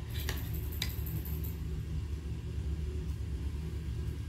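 Steady low background rumble, with two light clicks of a steel spoon against a ceramic plate in the first second.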